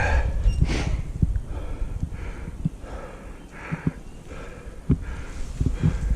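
A cyclist breathing hard in quick, even puffs after straining up a steep climb, over low wind rumble on the microphone, with scattered short knocks and clicks from the bike on the trail.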